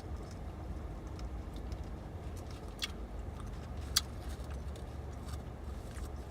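Steady low background rumble with a few faint light clicks and one sharper tick about four seconds in.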